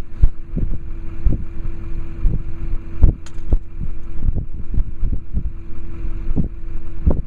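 Wind buffeting the microphone in irregular low thumps over a steady low hum.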